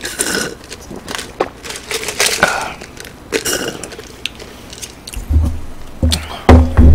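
Drink being sucked up through a plastic straw from a paper cup: a few slurping, sucking pulls and small clicks. Heavy low thumps follow near the end as the cup is lowered.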